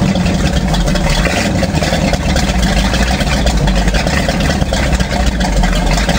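Marine Oldsmobile 455 V8 in a jet boat running steadily at a constant speed during its first-fire camshaft break-in.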